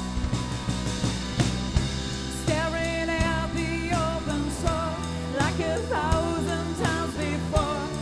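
Live rock band playing: electric guitar, bass guitar and drum kit keeping a steady beat, with a wavering melody line over them.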